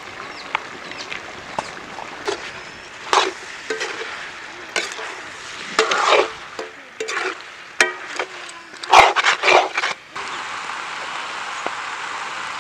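Metal perforated spatula scraping and clattering against an iron kadai as chicken pieces are stirred and tossed in the frying pan, in irregular strokes. About ten seconds in it cuts to a steady, even hiss of frying.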